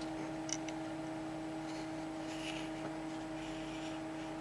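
Steady electrical hum with faint handling noise as a small metal workpiece is moved and set in a vise: a light click about half a second in and a few soft rustles.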